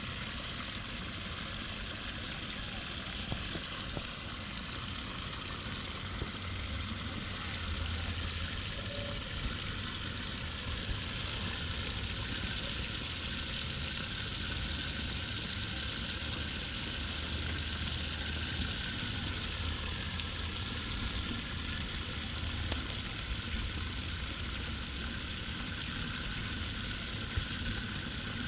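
Water rushing steadily through a drain, a constant hissing flow.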